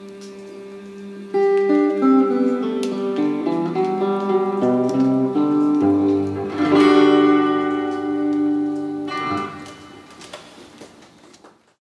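Hollow-body archtop guitar playing a closing phrase: a run of picked single notes, then a full chord about seven seconds in that rings out, and a last softer chord a couple of seconds later that fades away. The sound cuts off just before the end.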